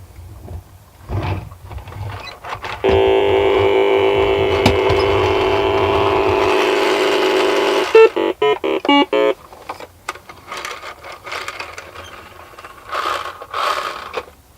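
Electronic sounds from a Milton Bradley Big Trak toy's speaker. A loud, steady, buzzing synthesized tone starts about three seconds in and cuts off sharply about five seconds later. A quick run of short beeps follows, then light clicking.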